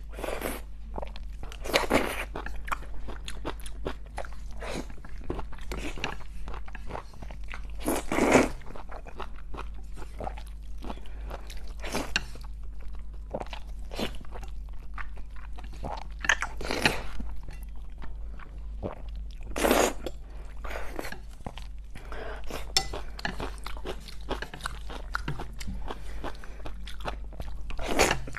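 Close-miked eating sounds of thick noodles in spicy sauce: wet chewing with loud slurps of noodle strands every few seconds.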